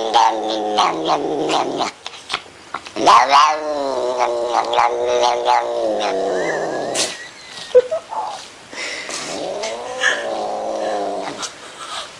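A cat yowling in long, drawn-out calls: one ends about two seconds in, and two more follow after short pauses, each swelling and then sliding down in pitch at its end.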